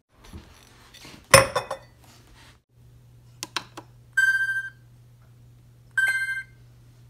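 Refrigerator door control panel beeping twice as its dispenser buttons are pressed: a short electronic tone about four seconds in and another about two seconds later. A thump about a second in and a few light clicks just before the first beep.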